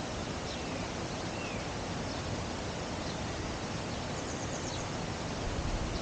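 Steady rushing outdoor noise with a few faint bird chirps, about a second in and again around four seconds.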